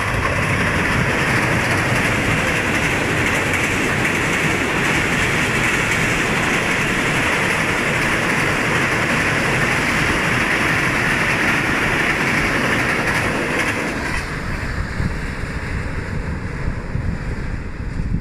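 Diesel-hauled Jaffar Express passenger train passing at about 105 km/h over a low steel-girder bridge: a loud, steady rush of wheels and coaches on the rails. It dies down about fourteen seconds in as the last coaches go by and the train draws away.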